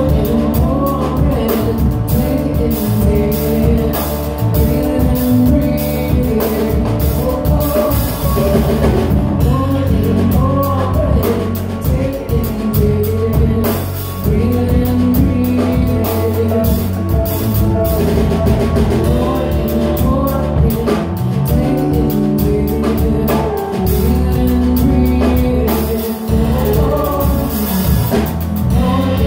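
Live kirtan music: a woman singing a devotional chant over her own harmonium, with electric bass and a steady percussion beat.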